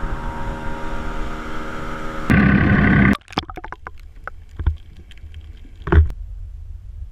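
Boat motor running at speed with a steady hum and the rush of water and wind. About three seconds in it cuts to muffled underwater sound beside a trolling motor's turning propeller, with scattered clicks and two low thumps.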